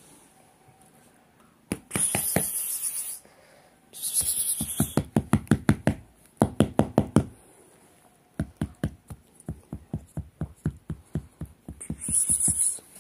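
Rapid knocking in runs of about five knocks a second, broken by three short bursts of rustling noise.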